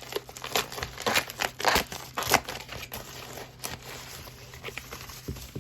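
A mail package being opened by hand: irregular crinkling and crackling of packaging, with some tearing.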